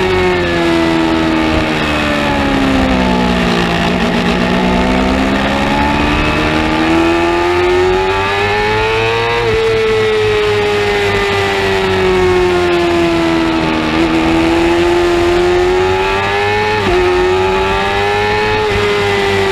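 600 cc supersport racing motorcycle engine at race speed, its pitch falling as the bike slows into a corner, then rising under throttle, easing and rising again, with a quick break near a gear change toward the end. Wind rushing past the bike runs underneath.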